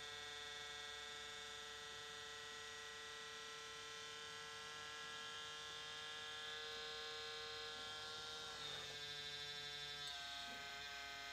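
Faint, steady electrical hum with many overtones, its pitch shifting slightly near the end.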